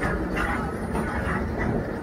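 Electric mine locomotive rolling on its rails: a steady low rumble of wheels on track with rattling clanks about twice a second.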